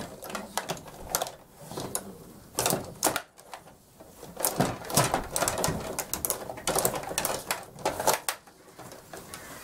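Stiga rod table hockey game in play: rapid clattering and clicking of the control rods and plastic players as they are twisted and pushed, in irregular bursts.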